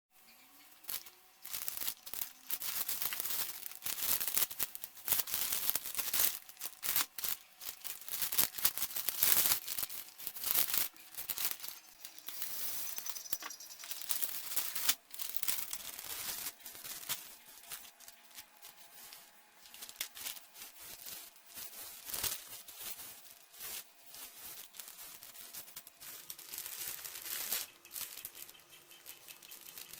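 A postal package being torn open and its wrapping crinkled by hand: a dense run of sharp rips and rustles, busiest for the first ten seconds or so, then sparser, quieter handling.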